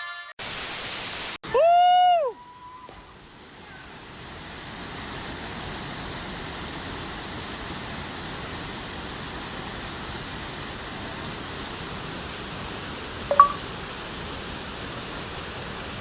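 A short burst of static, then a brief electronic tone that swoops up and back down in pitch. A steady, even hiss then fades in and holds, with one short blip near the end.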